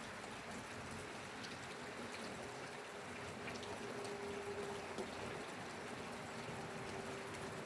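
Steady rainfall, a continuous hiss with scattered individual drop ticks, and a faint steady hum underneath.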